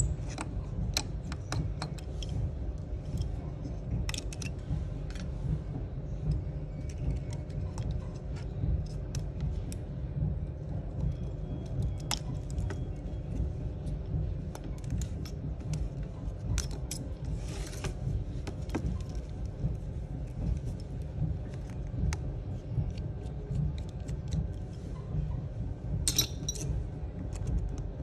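Scattered small metallic clicks and taps from a precision screwdriver working the tiny screws and metal brackets inside an iPhone 11, with a couple of short scrapes, over a steady low rumble.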